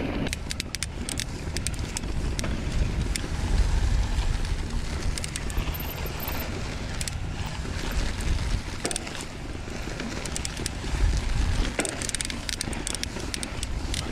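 Mountain bike riding fast downhill: wind buffeting the microphone over the sound of knobby tyres on the ground, with frequent small clicks and rattles from the bike.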